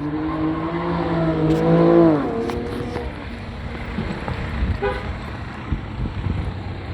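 A car horn honks for about two seconds with two steady tones, then stops. A short second toot comes about five seconds in, over low traffic rumble.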